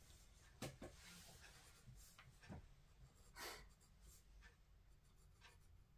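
Faint scratching of a pencil drawing on sketchbook paper, in a few short strokes, the most noticeable one about three and a half seconds in.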